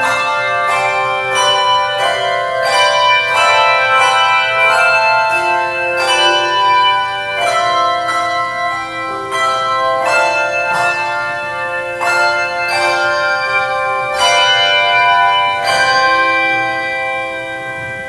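Handbell choir playing: chords of handbells struck in a steady rhythm, about three strikes every two seconds, each left ringing. The last chord is struck near the end and left to ring.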